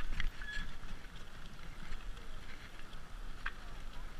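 Mountain bike rolling on a paved road, with a steady rumble of wind on the helmet-camera microphone and tyre noise. A few faint clicks and one brief high ping about half a second in.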